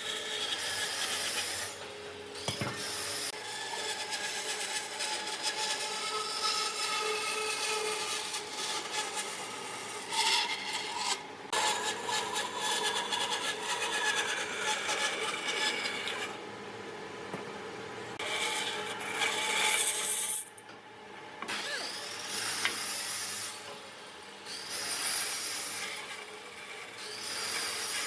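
Wood being scraped and rubbed by hand in irregular strokes, with a few short pauses.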